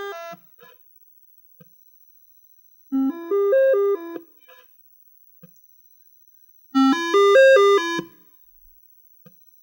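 A short electronic melody of buzzy, chip-style tones, played three times with pauses between, over a faint steady high whine.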